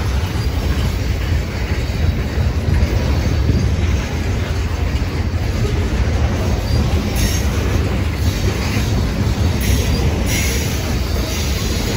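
Freight train tank cars rolling past at close range: a loud, steady low rumble of steel wheels on the rails. A few brief higher-pitched bursts of noise come in the second half.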